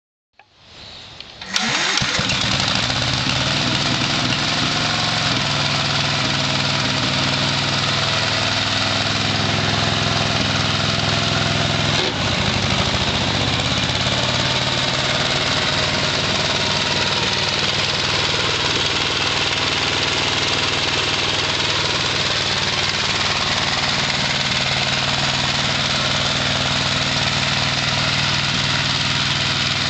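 Gravely walk-behind tractor's engine running while it drives a front-mounted rotary mower deck through grass. The engine comes in within the first second and a half. Its note shifts over the next ten seconds, with a click about twelve seconds in, and then runs steadily.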